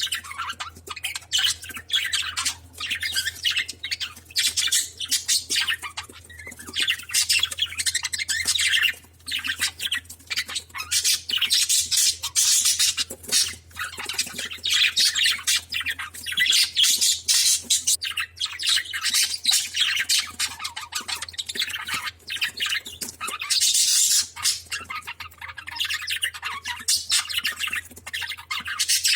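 Lovebirds chattering and squawking: many shrill calls in quick succession, hardly a pause, over a steady low hum.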